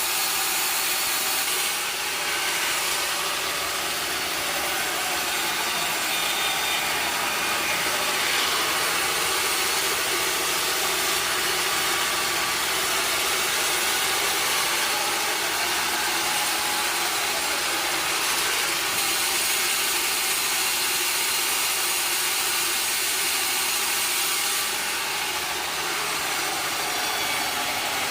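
Sawmill machinery running steadily: a wood-cutting saw and its engine, an even, continuous noise with no pauses or distinct strikes.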